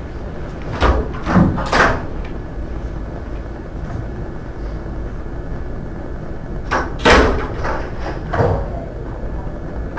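A few sharp knocks and clunks, three about a second in and another group around seven to eight seconds in, over a steady low background rumble.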